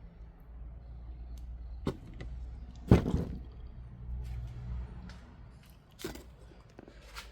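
Workshop handling noise: a few sharp knocks and clatters of things being picked up and set down, the loudest about three seconds in. A steady low hum runs underneath.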